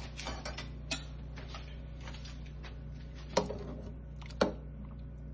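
Metal tongs knocking against the side of a cooking pot, two sharp clinks about a second apart near the end, with a few lighter clicks earlier, over a steady low hum.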